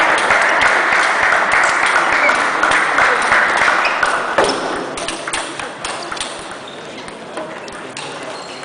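Table tennis ball clicking sharply off paddles and the table during a rally, over a loud background din that drops away about four seconds in.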